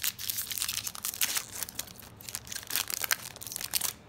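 Foil Magic: The Gathering booster pack wrapper being crumpled in the hands: a dense, rapid crinkling crackle that stops shortly before the end.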